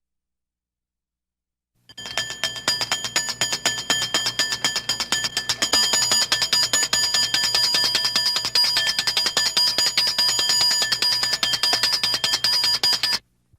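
An alarm bell ringing continuously, its hammer striking the gong very rapidly in a steady trill. It starts about two seconds in and cuts off suddenly near the end.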